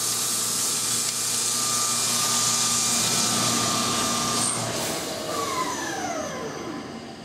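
Pinnacle QV-137 vertical machining center drilling 4140 steel with a coolant-through carbide drill: a steady hiss of high-pressure through-spindle coolant over the quiet gear-driven spindle turning at 1800 RPM in high gear. About four and a half seconds in, the coolant shuts off and the spindle winds down with a falling whine.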